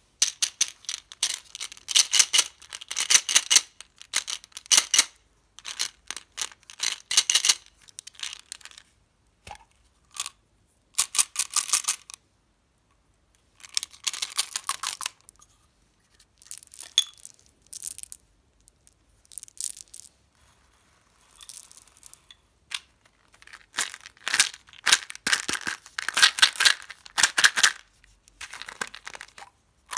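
Hands handling small plastic candy containers, caps twisted and packaging crinkled, with candies rattling inside. It comes as bursts of crackly clicking a second or two long, with short pauses between.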